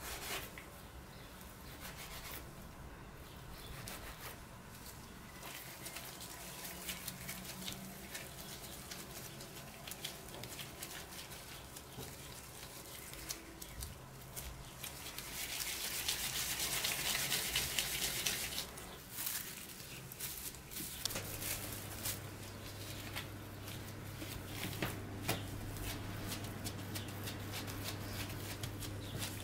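Gloved hands working bread dough: a plastic scraper cutting on the worktop, then dough pieces rubbed and rolled into balls and pressed flat, with small clicks and rubbing noises and a louder stretch of rubbing about halfway through. A steady low hum comes in about two-thirds of the way through.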